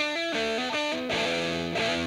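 Background music: a melodic electric guitar line of held, changing notes with distortion.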